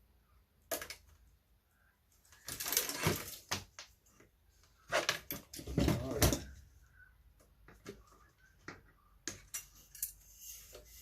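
Metal and plastic computer parts clattering and knocking as an eMac is being taken apart by hand, in two busy spells of clatter with a few lighter clicks near the end.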